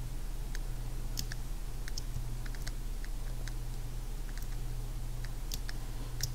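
Scattered clicks of a computer keyboard and mouse, with keys such as Option and the space bar pressed during Photoshop retouching, over a steady low hum.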